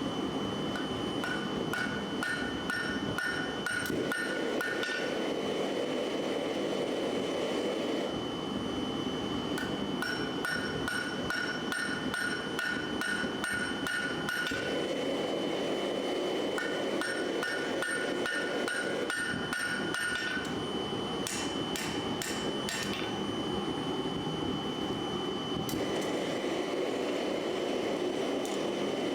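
Hammer blows on steel at an anvil in several bursts of rapid strikes, each strike ringing, over a steady roar.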